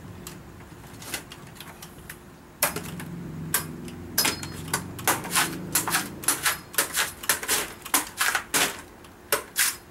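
Long knife chopping the green husk off a young Nam-Hom (aromatic) coconut held in the hand. After a few faint knocks, a fast run of sharp chops starts a few seconds in, about two to three strikes a second, with a short pause near the end.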